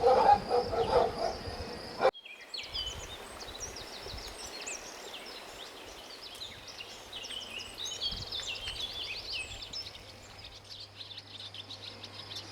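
Birds chirping and singing: many short, quick, falling chirps over a faint rural hiss, joined by a steady low hum partway through. Before them, a louder sound of rapid repeated pulses cuts off abruptly about two seconds in.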